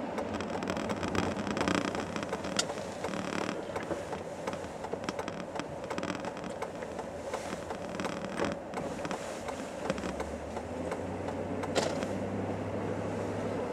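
Cabin noise inside a Mercedes-Benz W140 on the move: steady engine and tyre noise on a snowy road, with scattered creaks and clicks. A low engine hum comes in about ten seconds in.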